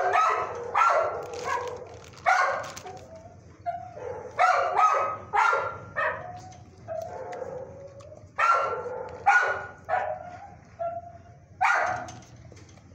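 A shelter dog howling and barking in a rapid string of short, loud calls with brief gaps between them, some held at a steady pitch. This is a kennelled dog howling at a visitor's presence, calling for attention.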